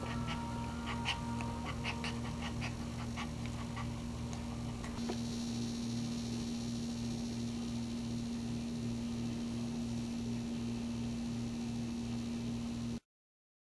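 Small dog whimpering: a run of short high squeaks for the first few seconds, over a steady electrical hum that carries on alone afterwards. The sound cuts out to silence near the end.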